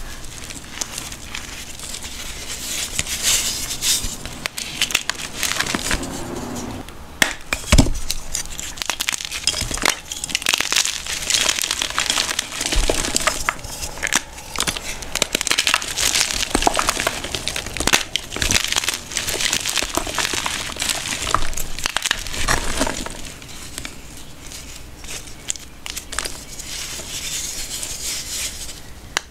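Blocks of gym chalk squeezed and crushed by hand in loose chalk powder: dry, crunchy crumbling in repeated bouts, with sharp cracks as the blocks give way, and softer crunching near the end.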